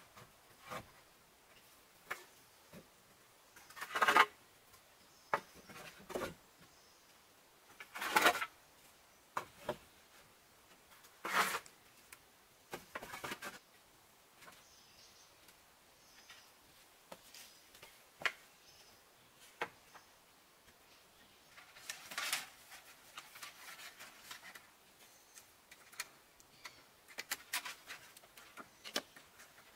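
Split bamboo poles knocking and clattering as they are handled and laid onto a bamboo platform, in scattered separate knocks with small clicks between. The loudest knocks come about 4, 8 and 11 seconds in, with a cluster around 22 seconds.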